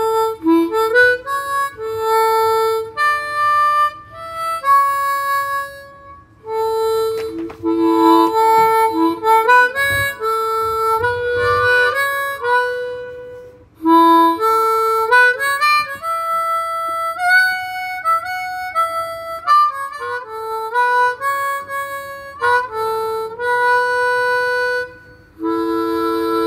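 Harmonica playing a slow melody in phrases, some notes sliding in pitch, with short breaks between phrases about six and fourteen seconds in.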